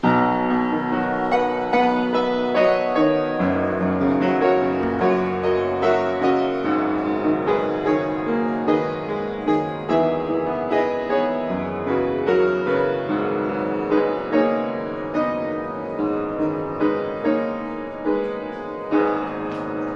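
Feurich upright piano played solo: a piece of chords under a melody line, a steady run of notes each left ringing.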